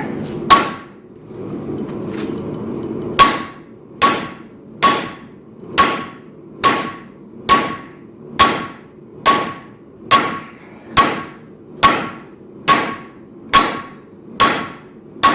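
Blacksmith's 5.7 lb hand hammer striking a hot 52100 bearing-steel roller bearing on the anvil: one blow, a pause of about two and a half seconds, then a steady run of about fourteen blows a little under a second apart, each with a short metallic ring. The steel is so hard that it barely moves under the blows.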